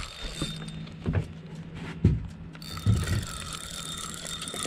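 Fishing reel whirring mechanically, with three dull knocks about a second apart from handling on the boat.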